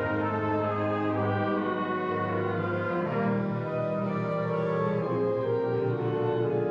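High school wind ensemble playing held, sustained chords with brass to the fore, the bass line moving to a new note every second or so.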